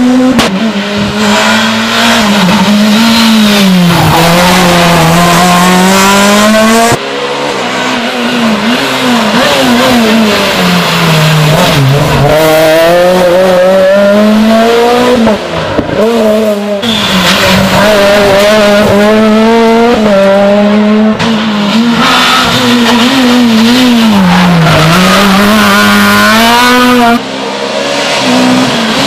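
Rally car engines at full load, running loud, their pitch climbing and falling with gear changes and throttle lifts. The sound breaks off abruptly about seven, sixteen and twenty-seven seconds in as one car gives way to the next.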